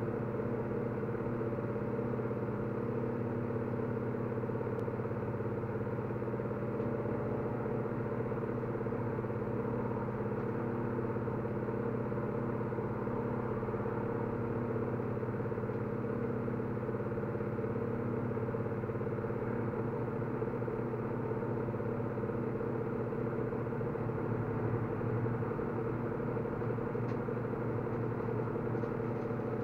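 Steady mechanical hum with several fixed tones, unchanging throughout, like a motor or engine running at an even idle.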